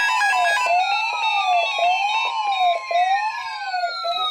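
Electronic siren-style alert sound: a tone sweeping up and down about once a second, with two higher tones gliding slowly downward. Steady beeping tones underneath stop under a second in.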